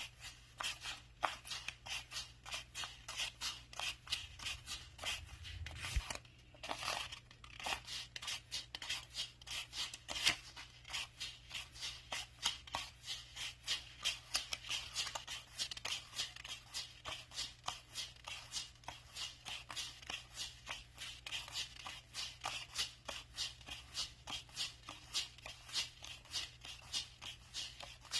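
Paper banknotes being counted by hand, each note flicked off the stack with a crisp papery snap, about three a second, with a brief pause about six seconds in.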